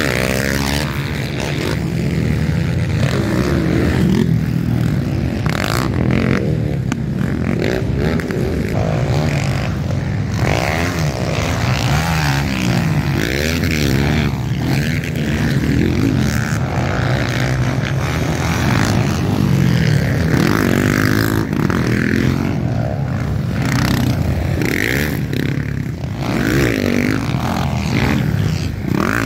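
Motocross dirt bikes racing past on a dirt track, their engines revving up and down continuously, with the pitch rising and falling as the riders work the throttle. Several engines overlap.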